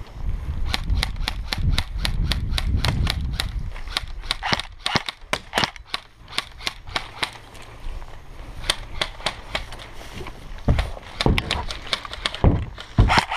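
Airsoft guns firing: a dense run of sharp pops, several a second, some in quick strings, going on the whole time after the first moment. A low rumble sits under the first few seconds.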